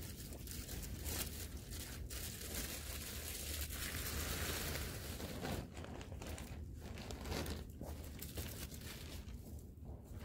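Irregular crinkling and rustling with scattered sharp clicks, growing denser and louder for a couple of seconds near the middle.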